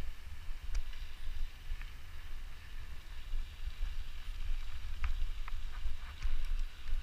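Wind buffeting the microphone of a camera on a moving mountain bike, a gusty low rumble, over the steady hiss of knobby tyres rolling on a dry dirt trail. There are a few sharp ticks and rattles, clustered about five to six and a half seconds in.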